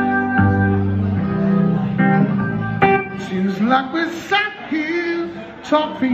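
Amplified Chapman Stick played by two-handed tapping, with bass notes under melody notes. About halfway through, a man's singing voice comes in over it.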